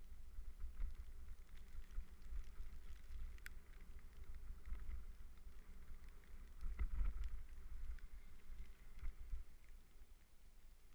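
Wind rumbling on the microphone of a camera riding along on a mountain bike, with scattered rattles and clicks from the bike on the trail. There is a sharp click about three and a half seconds in, and the rumble is loudest around seven seconds in.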